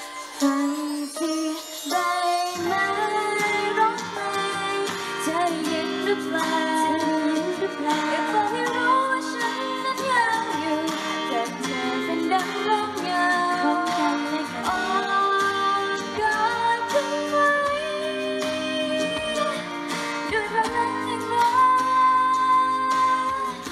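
A female singer sings a slow pop ballad live into a handheld microphone over a backing track, heard through the stage's loudspeakers.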